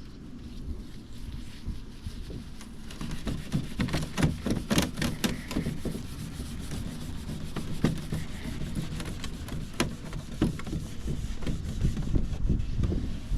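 Steel wool scrubbing and scraping across a wooden dresser being stripped of its stain, with irregular sharp knocks from the work and a steady low rumble underneath.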